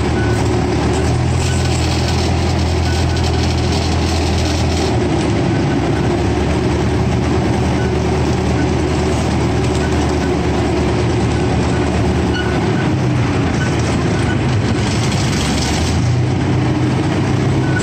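Engine of a Chance Rides amusement-park train running steadily under way, with the rumble of the cars rolling along the track, heard from aboard. The engine note is stronger for the first few seconds and again near the end.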